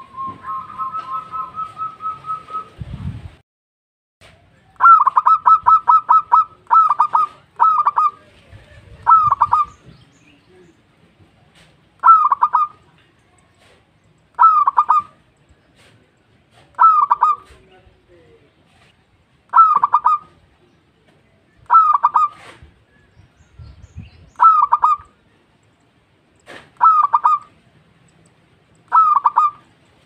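Zebra dove (perkutut) calling: a pulsed, steady coo for about three seconds, then a fast run of short notes, then short phrases of clipped coos repeated about every two and a half seconds.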